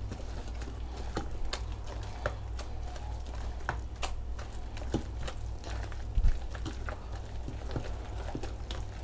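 Gloved hands kneading wet shrimp paste with egg and starch in a stainless steel bowl, making irregular squelches and light clicks, with a louder thump about six seconds in. A steady low hum runs underneath.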